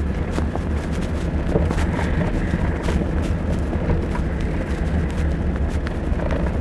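Inside a pickup truck's cabin driving on a gravel road: steady low engine and tyre rumble with scattered small clicks and rattles.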